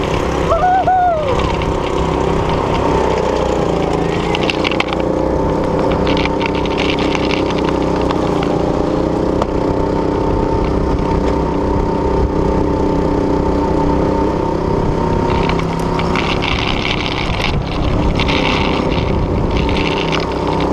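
Go-kart's small engine running steadily as the kart drives around the track, heard from on board.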